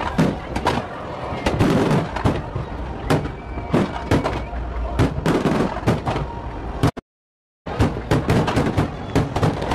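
Fireworks display: aerial shells bursting one after another in a dense run of sharp bangs and crackles. The sound cuts out completely for about half a second two-thirds of the way through, then the bangs resume.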